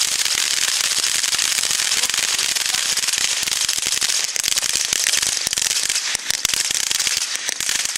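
A ground fountain firework sprays a shower of sparks with a steady hiss and dense, continuous crackling from its crackling stars.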